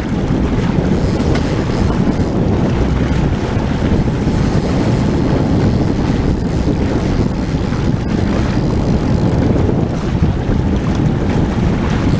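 Steady wind noise buffeting the microphone aboard a trolling boat, a low rumble with no breaks.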